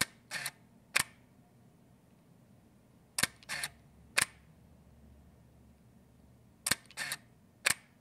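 Canon 5D DSLR shutter released three times, with mirror and lens fitted. Each release is a sharp click, a brief whir, then a second sharp click about a second after the first, the shots spaced about three and a half seconds apart.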